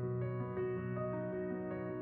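Background music: soft new-age piano or keyboard music with slow held notes.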